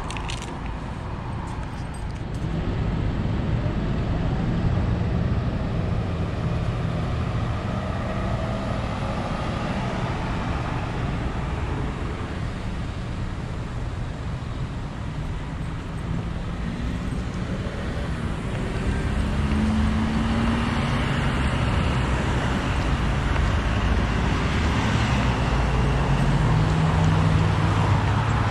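Road traffic: a steady rumble of passing cars, swelling louder a few seconds in and again past the middle.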